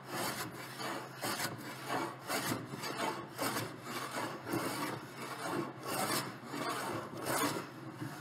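Hand bench plane shaving a walnut slab and its black epoxy fill, in quick back-and-forth strokes, about two a second: the surface being planed smooth after flush-trimming with a router.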